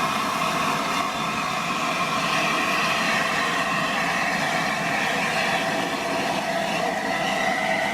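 Steam locomotive 60009 Union of South Africa, an LNER A4 Pacific, on the turntable: a steady hiss with a few high tones held underneath.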